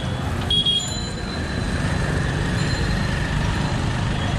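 Steady road traffic noise from a busy street, with vehicle engines running, and a brief high-pitched tone about half a second in.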